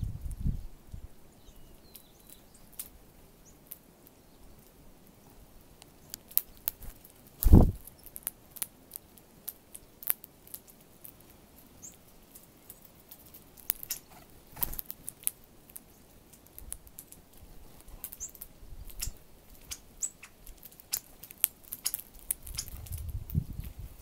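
Northern cardinals and sparrows pecking at birdseed on a ledge close to the microphone: a steady scatter of small sharp clicks, with one louder thump about seven and a half seconds in and a few faint high chirps.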